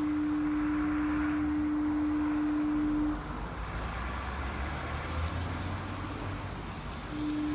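Odessa lighthouse foghorn sounding in fog: a steady single-pitched blast that stops about three seconds in, and after a pause of about four seconds the next blast begins near the end. A low rumble fills the pause.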